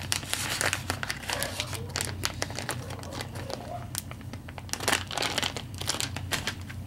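Plastic bait bag of soft-plastic fishing lures crinkling and crackling as it is handled, a dense run of irregular sharp crackles.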